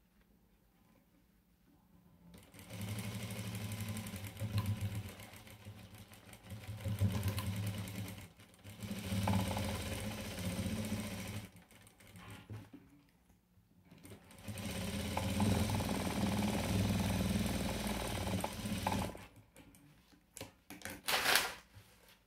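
Sewing machine stitching a seam in several runs of a few seconds each, stopping and starting again between them. A couple of sharp clicks come near the end.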